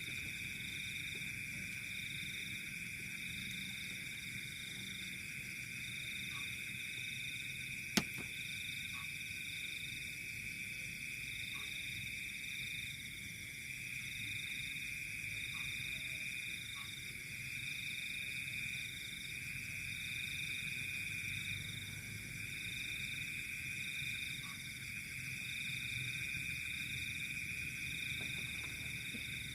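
Night chorus of calling frogs and insects: a steady high-pitched trilling, with a higher layer pulsing on and off about once a second. One sharp click stands out about eight seconds in.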